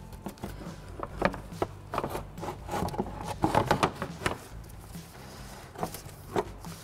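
Plastic radiator fan shroud clacking and scraping against the radiator and fan as it is worked down into place: a run of irregular knocks and rubbing, busiest about three to four seconds in.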